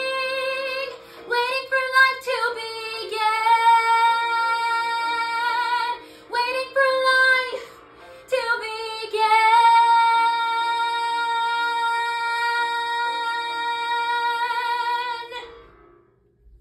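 A woman singing the closing phrase of a show tune solo: several held notes, then one long final note with vibrato that ends near the end.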